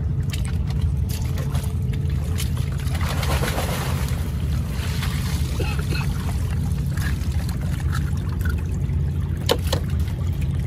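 Seawater trickling and splashing off a hanging line of farmed oysters as it is pulled up out of the water, with a couple of sharp knocks near the end, over a steady low rumble.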